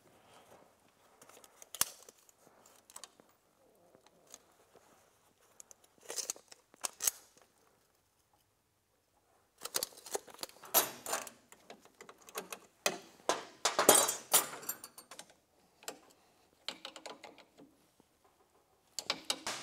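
Hand tools working bolts on a snowmobile's rear suspension: scattered metal clinks and rattles from a socket ratchet and wrench, with a busier run of clicking past the middle.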